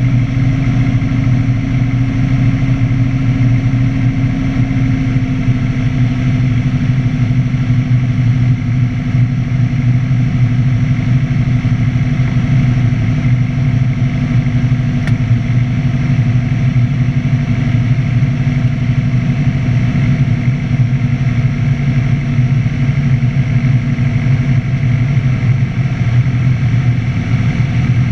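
Light aircraft's engine and propeller droning steadily, heard inside the cockpit; the pitch eases down slightly about five seconds in.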